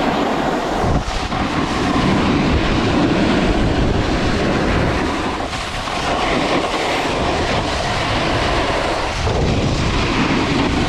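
Rushing wind on the microphone mixed with the scraping hiss of sliding fast over snow on a steep downhill run, with short dips about a second in, around the middle and near the end.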